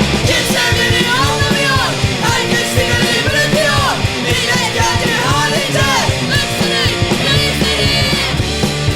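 Punk rock song: a singer's voice over a loud full band with a steady drum beat.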